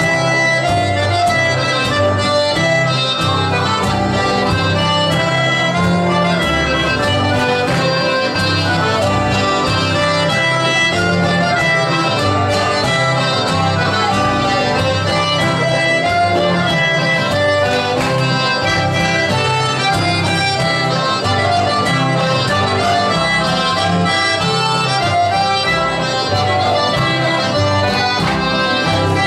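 Three button accordions playing a schottische dance tune together, with acoustic guitar accompaniment and a steady, even dance beat.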